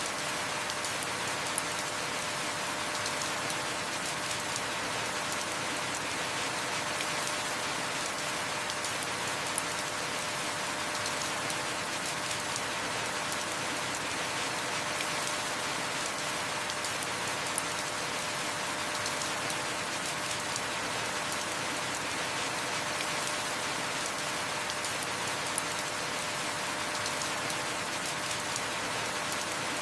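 Heavy rain falling steadily, with a sharp single click or drip every several seconds.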